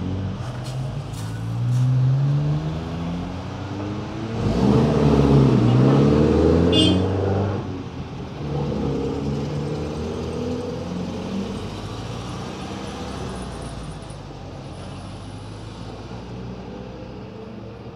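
Vintage cars, a Volkswagen Beetle among them, driving past one after another, their engines revving up and easing off as they pull through. The loudest pass comes about five seconds in, and the engine sound fades away over the last few seconds.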